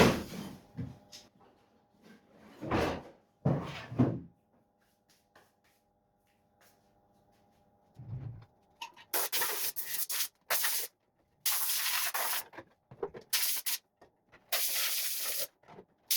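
3D-printed plastic parts being handled, with a few knocks and rattles in the first few seconds. From about halfway in comes a run of hissy rubbing or scraping strokes, each lasting roughly half a second to a second and starting and stopping abruptly.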